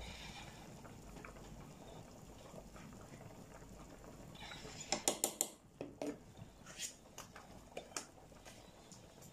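Light clicks and taps of a spoon against a plastic tub as crayfish is added to a simmering pot of soup: a quick run of three or four taps about five seconds in, then scattered single clicks over a faint steady simmer.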